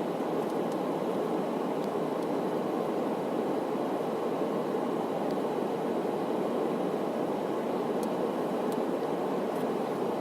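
Steady rushing noise inside a car's cabin, an even hiss at a constant level.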